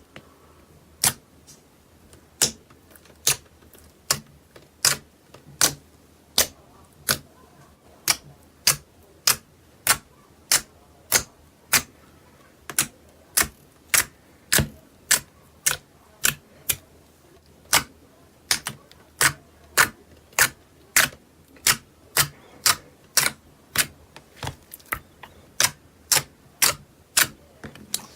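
Slime being pressed and worked by hand, making sharp clicking pops at a steady pace of about one and a half a second.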